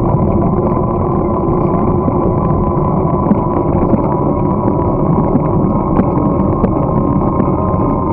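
Steady rushing wind noise on a bicycle-mounted camera's microphone while riding over a snow-packed path, with a few light clicks and rattles.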